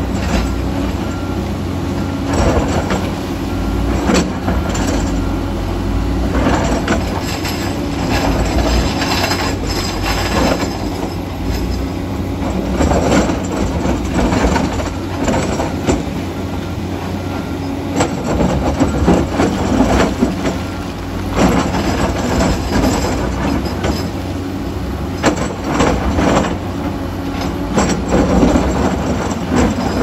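Diesel engines of an MST crawler excavator and a Komatsu D85EX crawler bulldozer running together under load. Repeated knocks and clatter come from steel tracks and from rock being broken and scraped out of the cut by the excavator bucket.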